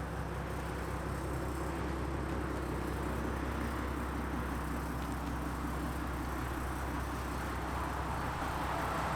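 A vehicle engine running steadily with a low hum, and a rising whoosh coming in near the end.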